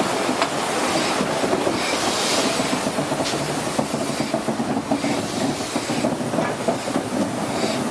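Train running along the track, its wheels clattering over the rail joints with a steady rushing noise.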